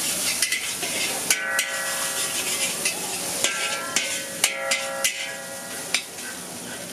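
Noodles sizzling in a hot steel wok while a metal spatula clanks and scrapes against the pan. About a second in, and twice more later, the scraping sets off a ringing metallic screech that stops abruptly.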